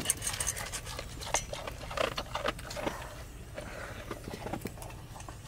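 A dog panting in short irregular breaths over a low steady engine hum.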